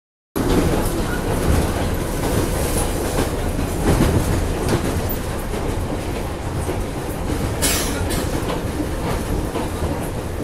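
Interior noise of a moving metro train car: a continuous loud rumble from the running gear with the clickety-clack of wheels over rail joints. A brief high-pitched hiss or screech comes about three-quarters of the way through.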